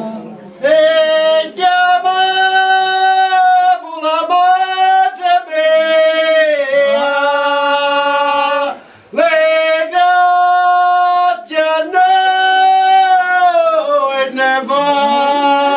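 Unaccompanied singing of a Sicilian devotional song to the Madonna: long held, gliding notes in slow phrases, with a brief breath pause about nine seconds in.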